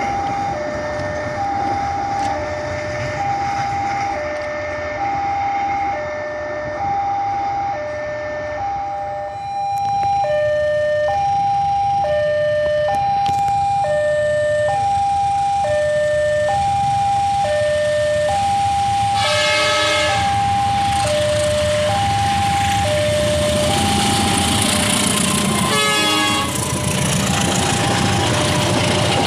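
Railway level-crossing alarm sounding a two-tone high-low chime, about one pair of tones a second, without a break. A diesel locomotive's horn blasts twice in the second half, and the passenger train is heard running past near the end.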